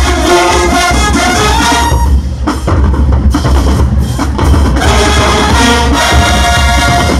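Marching band playing loudly: a brass section over a drumline. About two seconds in the horns drop out and the drums carry on alone, and the horns come back in near the middle.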